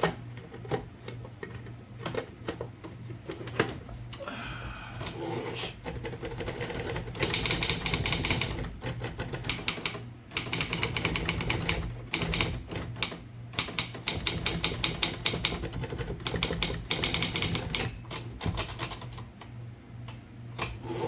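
A freshly repaired vintage typewriter being typed on: runs of rapid key strikes with short pauses between them, over a steady low hum.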